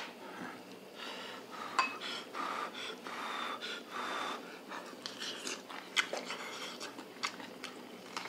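Person eating cured pork ribs from a hotpot: breathy chewing and sucking at the meat, with a few sharp clinks of tableware, the loudest about 2 and 6 seconds in.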